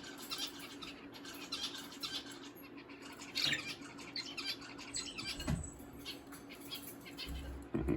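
Pet birds chirping and squawking in quick, overlapping short calls at feeding time, with one louder call about three and a half seconds in; the chatter grows with the smell of freshly cracked egg.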